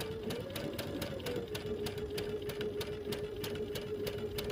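Sewing machine stitching a seam through quilt fabric: a steady motor hum with the needle ticking regularly, about three strokes a second. The motor speeds up briefly about half a second in.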